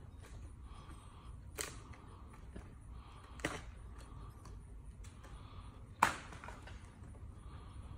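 Three sharp knocks from palm-frond trimming, a couple of seconds apart, the last much the loudest with a brief rattle after it.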